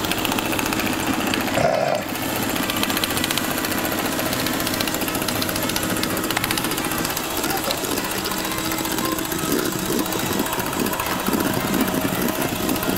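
A small electric motor running steadily with a fast buzzing rattle, with a brief dip about two seconds in.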